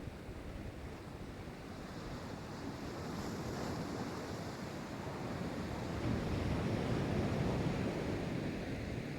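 Pacific Ocean surf: waves breaking and washing in. A hissing rush swells a few seconds in, and a louder, deeper rush of surf follows later.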